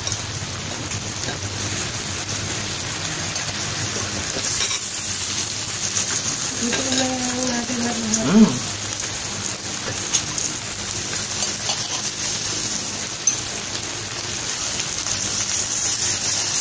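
Pork and sausages sizzling on an electric grill plate, a steady hiss. A few light clicks of utensils and a short voiced sound come about halfway through.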